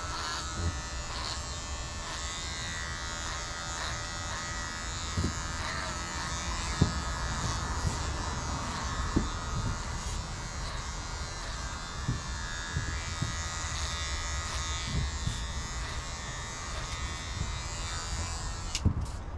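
Electric hair clippers running steadily with a buzzing hum as they cut hair, switched off near the end.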